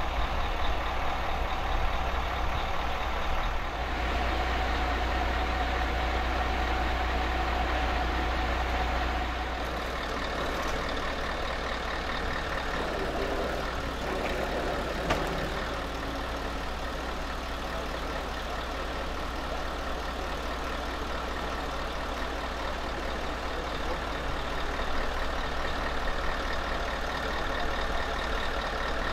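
Heavy trucks' diesel engines idling and running steadily, a continuous low hum that eases a little about ten seconds in.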